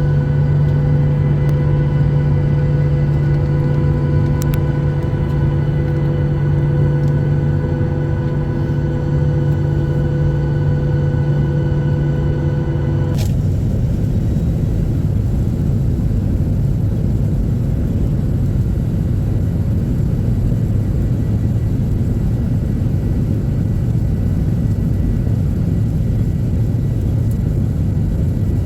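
Airliner engine and cabin noise: a steady multi-tone engine hum that gives way abruptly, about 13 seconds in, to a loud, even rumble.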